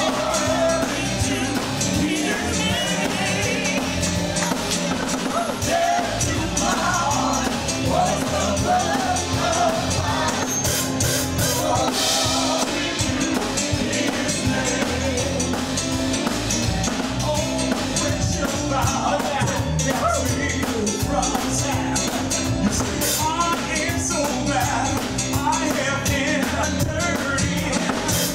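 A hymn sung to musical accompaniment with a drum kit, playing steadily without a break.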